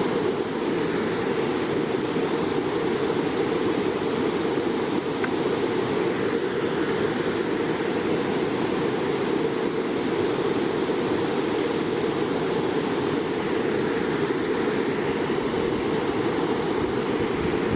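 Waterfall rushing, a steady even sound of falling water.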